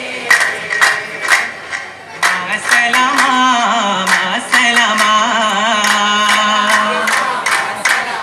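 Vattappattu troupe of young men singing in unison to sharp rhythmic hand claps, about two a second. From about two seconds in, a long melodic line with wavering pitch is sung over the clapping.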